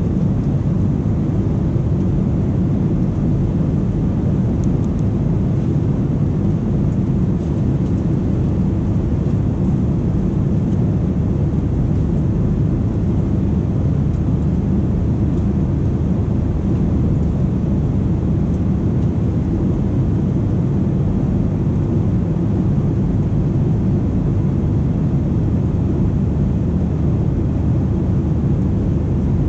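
Steady low rumble of cabin noise inside a Boeing 737-800 airliner in flight, from the rush of air over the fuselage and its jet engines.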